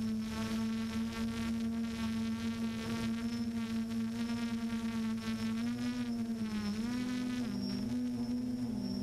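Multirotor drone's electric motors and propellers buzzing steadily, recorded by the camera on the drone itself. The pitch shifts up and down a few times over the last few seconds as the motors change speed while it manoeuvres.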